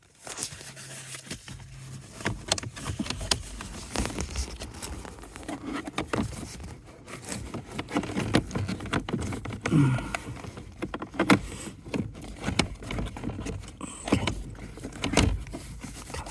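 Irregular plastic knocks, clicks and scrapes as a replacement HVAC blower motor is pushed and twisted into its plastic housing by hand.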